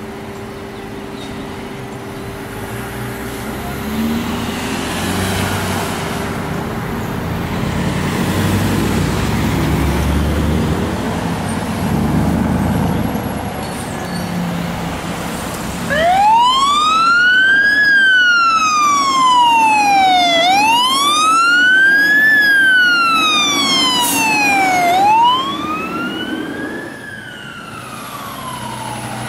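Heavy fire-apparatus diesel engines rumbling as they pull out. About halfway through, a Pierce Saber pumper's electronic siren starts in a slow wail, rising and falling about every four and a half seconds, and drops in level near the end.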